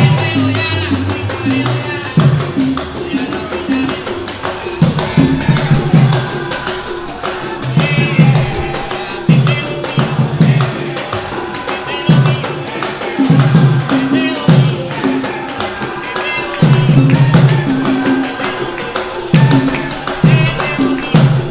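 Afro-Cuban Santería drumming on several double-headed, rope-laced hand drums played across the lap, in a steady interlocking rhythm, with a voice singing over it.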